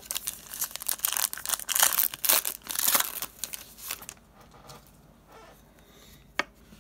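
Foil wrapper of a Panini Prestige football card pack being torn open and crinkled for about four seconds, then it goes quiet apart from a single sharp click near the end.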